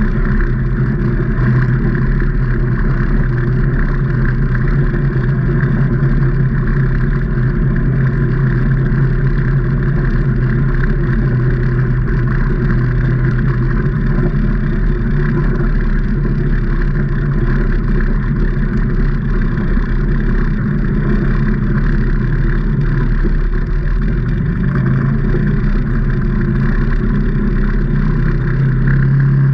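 2019 Can-Am Maverick Trail 800 side-by-side's V-twin engine running steadily while driving, its note getting a little stronger near the end.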